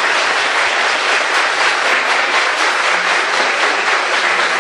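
Audience applauding steadily at the end of a comedy sketch.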